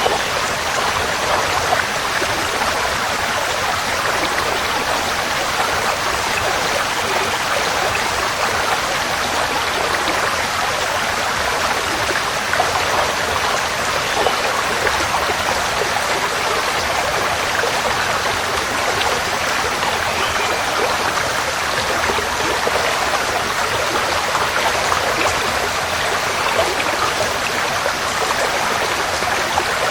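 Forest stream flowing over rocks: a steady babbling and splashing rush of water.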